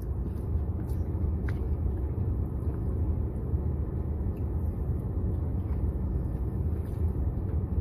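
Steady low rumble inside a car cabin, with the engine idling, and a few faint clicks.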